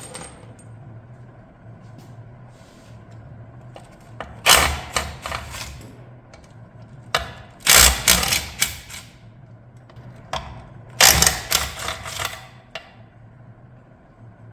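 A socket wrench undoing transmission bell-housing bolts: three bursts of rapid mechanical rattling, each lasting a second or two, about four, seven and eleven seconds in.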